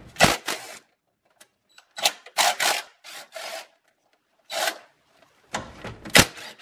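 A ratchet and socket loosening the bolts that hold down a battery tray, heard as several short bursts of ratcheting with pauses between them and a sharp click near the end.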